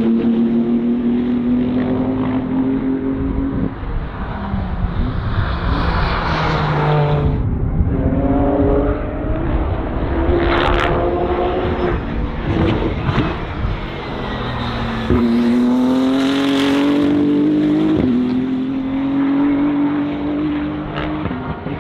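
BMW M4 GT3 race car's twin-turbo straight-six at full throttle. The engine note climbs through the revs and drops sharply at each upshift, several times over, with a few sharp cracks from the exhaust around the middle.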